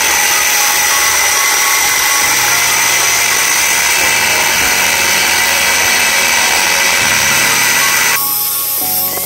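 An electric power tool running at steady speed with a high whine, cutting off about eight seconds in.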